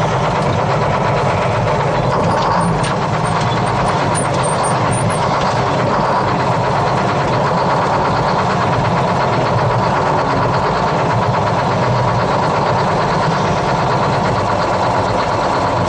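Detroit Diesel 6-71 two-stroke inline-six diesel in a 1968 GMC water truck, running steadily.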